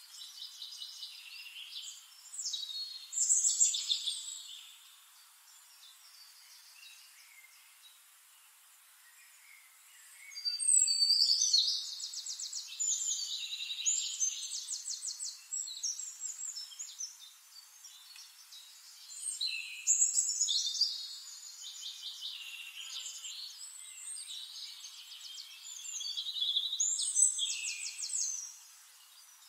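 Small songbirds singing: quick, high trills and chirping phrases that come and go, with louder bursts about three, ten, twenty and twenty-seven seconds in.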